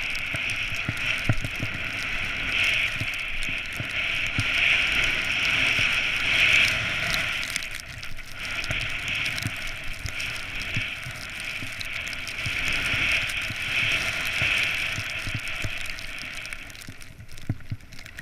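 Snow hissing steadily under a downhill run through deep fresh powder, with wind rushing over the camera and frequent low thuds from bumps in the snow; it thins out near the end.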